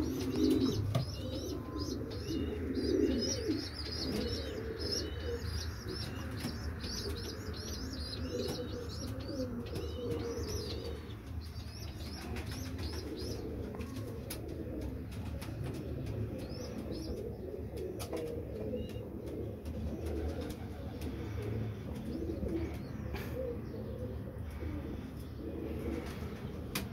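Many racing pigeons cooing together, a continuous low burble. A smaller bird chirps high and repeatedly through roughly the first ten seconds, and scattered wing flaps and light knocks come later.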